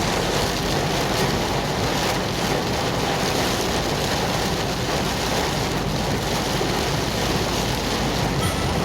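Steady rushing noise of a moving vehicle, with wind blowing on the microphone.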